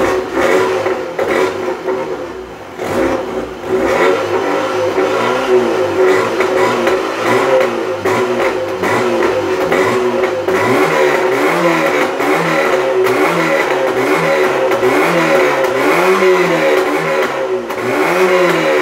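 Volkswagen Golf Mk3 GTI engine on its stock exhaust, heard at the tailpipe, revved in repeated quick blips. The pitch rises and falls back about once a second.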